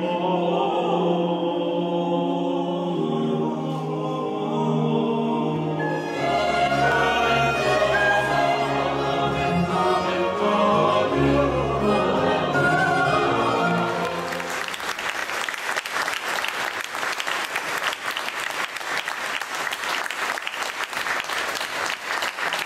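Mixed choir singing a polyphonic mass movement, with deep bass notes joining about six seconds in. The piece ends on a held final chord about fourteen seconds in, and audience applause follows.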